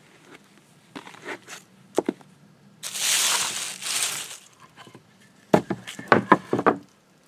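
Hands working with damp shredded tobacco, a plastic bucket and oak wood planks on a wooden table. A few light clicks come first, then a loud rustling rush about three seconds in, then a quick run of wooden knocks near the end as the planks are handled and set down.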